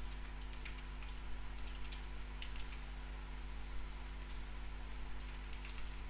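Typing on a computer keyboard: short runs of key clicks with brief pauses between them, over a steady low electrical hum.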